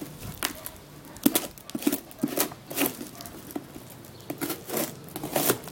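A knife blade cutting and scraping through packing tape on a cardboard box, in a run of short, irregular scratchy strokes while the parcel is slit open.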